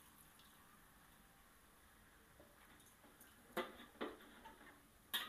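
Mostly near silence, then a few short clicks and scrapes in the last couple of seconds: a metal spatula stirring water and minced pork in a wok.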